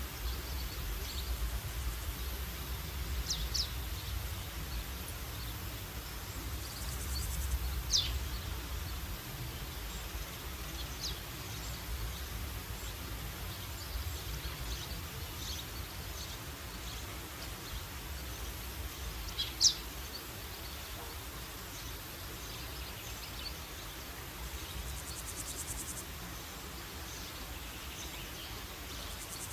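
Woodland ambience: a few short, high, downward-sweeping bird calls spaced several seconds apart, the loudest about two-thirds of the way through, over a steady low rumble and a faint high insect hum.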